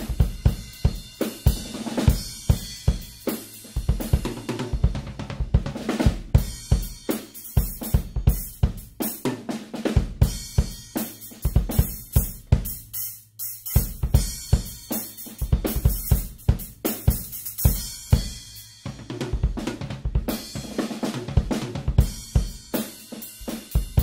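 Drum kit played as a groove, with the drums heavily muted by towels and Centent Whisper Series perforated low-volume cymbals: 14-inch hi-hats, 16- and 18-inch crashes and a 20-inch ride. The cymbals ring softly between the hits.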